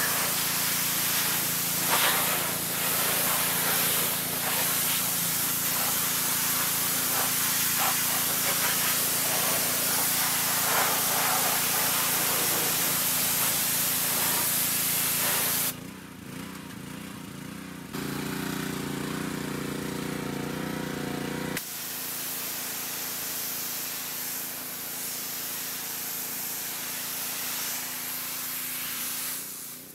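Pressure washer spraying, a loud steady hiss over a low steady hum. About halfway through the spray cuts off suddenly, and a few seconds later it starts again, somewhat quieter.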